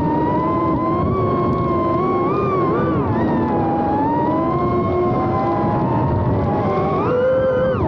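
FPV drone's brushless motors whining, several pitches gliding up and down together with the throttle over a rush of propeller and wind noise. Near the end the pitch climbs sharply, then falls away steeply as the throttle is cut.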